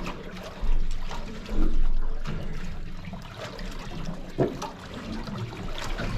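Water lapping and splashing against the hull of a small fishing boat on the drift, with scattered small knocks and a steady low rumble underneath.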